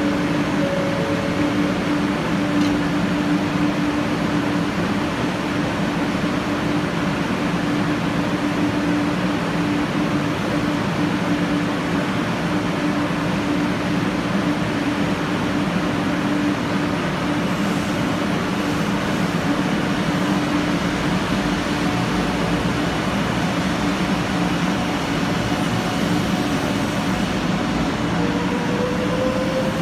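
500 series 7000-subseries Shinkansen train standing with a steady electrical hum and a low steady tone. Near the end its traction inverters start to whine, rising in pitch, as the train begins to move off.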